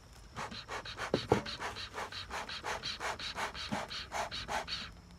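Bee smoker bellows pumped rapidly, about five short puffs of air a second, fanning the pine-needle fuel in the smoker to get it burning. There are a couple of light knocks about a second in.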